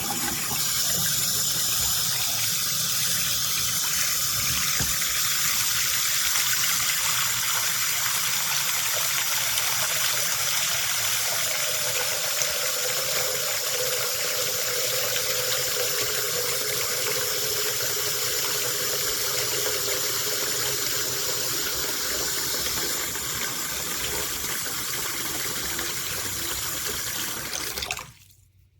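Bathroom faucet running hard into a sink basin in a steady gush, with a faint tone slowly rising as the basin fills; it stops abruptly near the end.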